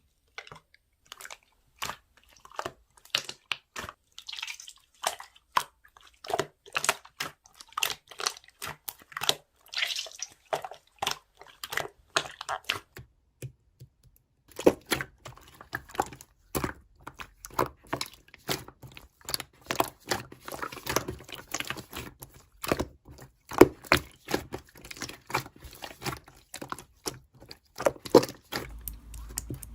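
Slime being squeezed and pressed by hand, making quick sticky pops and clicks, a few each second.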